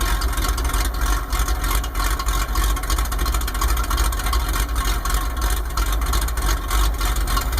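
1995 Ford F-150 engine idling with an uneven, pulsing lope like a cammed engine. The lope comes from a vacuum leak in the Thermactor air system.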